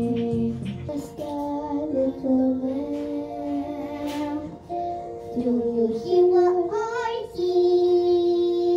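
Young girls singing a song together into karaoke microphones, holding long notes.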